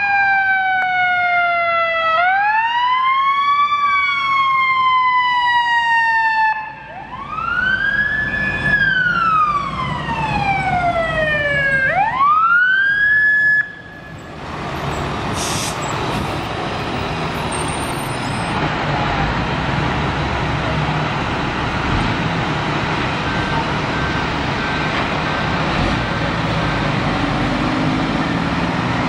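Fire apparatus siren wailing in slow rising and falling sweeps, then cutting off about fourteen seconds in. After that come the steady engines and tyre noise of the passing emergency vehicles and traffic.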